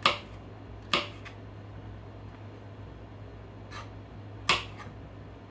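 Kitchen knife chopping on a plastic cutting board: a handful of sharp, separate knocks, irregularly spaced, the strongest near the start, about a second in, and about four and a half seconds in.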